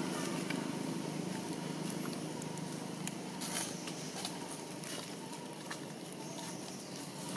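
Scattered crackles and clicks of dry leaf litter and jackfruit being handled as long-tailed macaques feed, over a steady low background hum.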